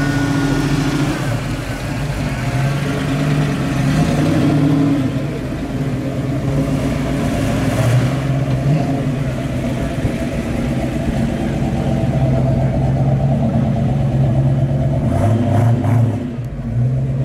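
V8 muscle-car engines (a Ford Mustang Mach 1, then a 1970 Chevrolet Chevelle SS) rumbling past at low speed, one after the other. The engine pitch rises and falls a few times with light throttle blips.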